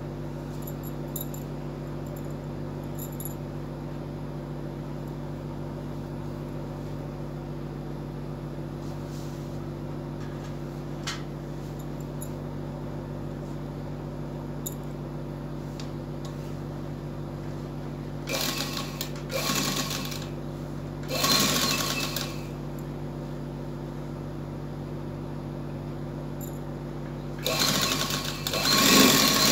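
Sewing machine stitching in three short runs, about two-thirds of the way in, again a second later and near the end, sewing two folded bias strips together along their centre fold. A steady low hum runs underneath.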